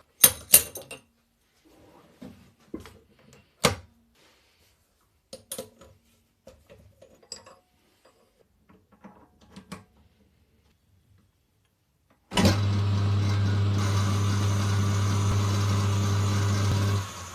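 Scattered clicks and knocks of small hard objects being handled, then a mains-powered machine hums steadily for about five seconds and stops.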